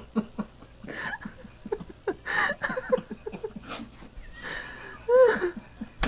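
Two men laughing hard, with wheezing, breathy bursts and a loud high laugh about five seconds in.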